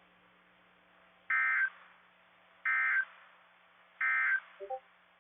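Emergency Alert System end-of-message data bursts: three short, identical bursts of warbling two-tone digital data, about 1.3 seconds apart, marking the end of the alert. Behind them is a faint steady hum.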